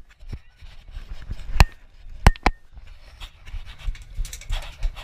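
A few sharp knocks or cracks, one about a second and a half in and a quick pair a little later, each with a brief high ring after it, over low rustling of gear.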